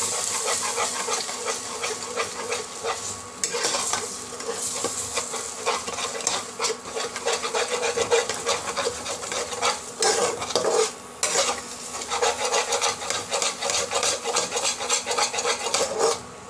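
A metal spatula stirring and scraping eggs around a non-stick pot, breaking them up into scrambled egg bhurji as they sizzle in the hot oil and masala. The scraping comes in quick, repeated strokes over a steady frying hiss.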